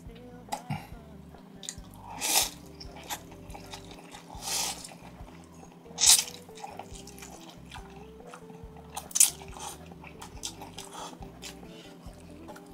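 A person slurping and chewing instant noodles, with four loud slurps spread through and the loudest about six seconds in, over quiet background music.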